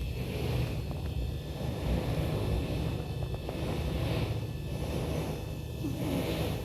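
Cat snoring: a steady low rumble with a soft hiss on each breath, swelling and fading every second or two.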